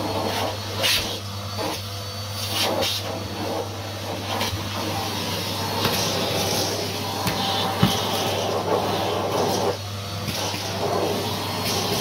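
Numatic Hetty cylinder vacuum cleaner running steadily, its crevice tool sucking over carpeted stairs, with scattered short clicks and rattles.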